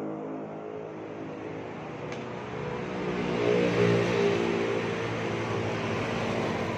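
Passing road traffic: one vehicle's engine fades away at the start, then another approaches and goes past about four seconds in.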